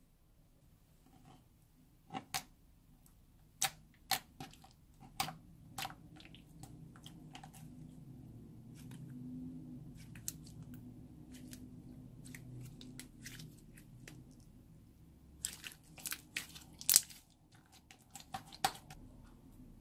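Clear slime being kneaded, folded and stretched by hand as blue pigment powder works into it, giving sharp sticky pops and clicks. The clicks come in clusters in the first few seconds and again near the end, with softer squishing handling in between.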